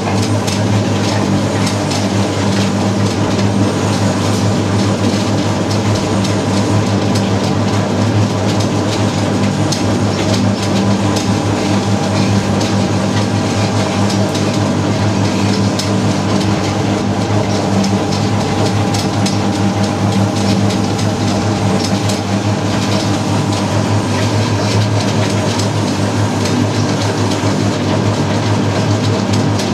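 Naswar mixing machine running steadily: a constant motor hum under a continuous rattle and clatter as its paddle churns the moist tobacco mixture in the steel drum.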